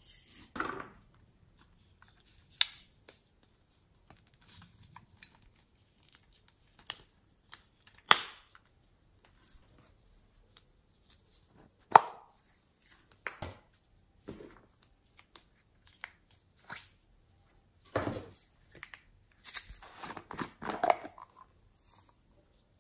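Small plastic containers and lids clicking and tapping as they are opened and handled, with a rustling, rattling cluster near the end as sprinkles are tipped out of a clear cup onto slime.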